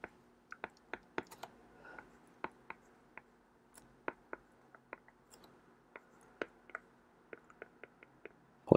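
Irregular light clicks and taps of a stylus tip on a tablet screen while an equation is handwritten, about two to three a second, with a short louder sound right at the end.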